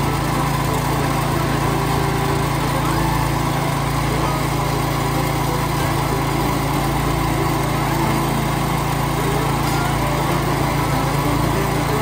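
Small gasoline engine of a Harbor Freight towable backhoe running steadily, with no change in speed.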